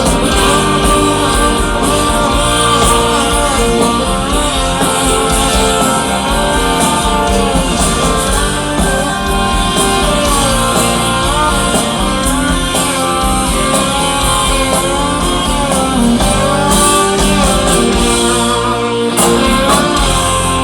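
Live rock band playing, electric guitar prominent, with wordless singing gliding over the band.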